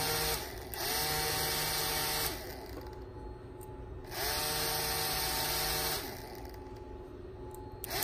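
Small DC motor with a propeller whirring in short runs, switched on and off by pressing and releasing a normally open limit switch. Each run spins up and winds down. One run stops just at the start, then two more run for about one and a half to two seconds each.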